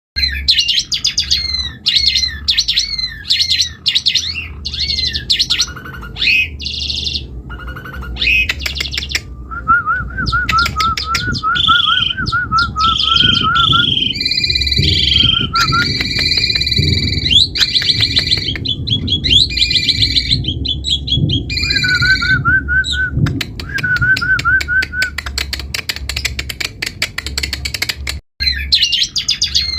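Asian pied starling (jalak suren) singing a long, varied song. It runs from quick repeated notes into whistled phrases and a warbling trill, mixed with rapid clicking notes, and breaks off briefly near the end.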